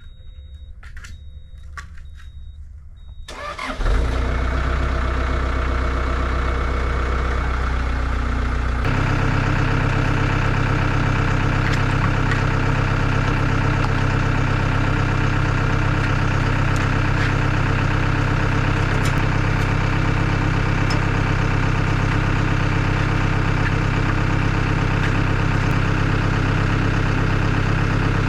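Skid steer's diesel engine starting: a few short electronic beeps, then it cranks and catches between three and four seconds in and settles to an idle. At about nine seconds the engine speed steps up and it runs steady as it warms up.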